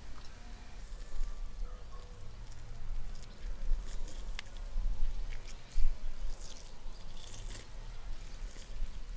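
Close-up wet tearing, squishing and crackling as a thin membrane is peeled and pulled off a round piece of food by hand, in irregular small bursts with a sharper crack a little before six seconds in.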